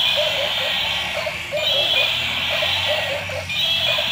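Electronic sound effects from battery-powered toy animals playing through small speakers: a short hissing burst that repeats about every two seconds over quick, high, chirping calls.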